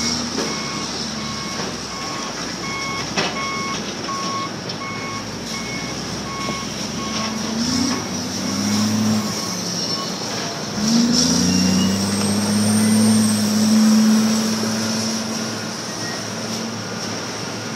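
Heavy machinery's reversing alarm beeping about twice a second for the first ten seconds or so, over a steady high whine. An engine revs up twice, around eight and eleven seconds in, then runs at a steady speed.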